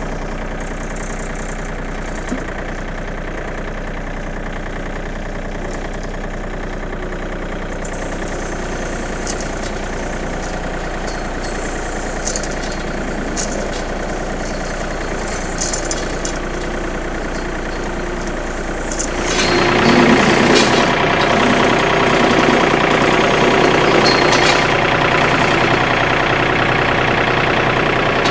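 John Deere 2032R compact tractor's three-cylinder diesel engine running just after starting, as the tractor creeps forward; about 19 seconds in it revs up and runs louder. A few light clinks come through now and then.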